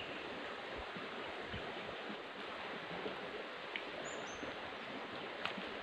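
Steady rushing of a flowing stream, with two short high bird chirps about four seconds in and a few faint ticks.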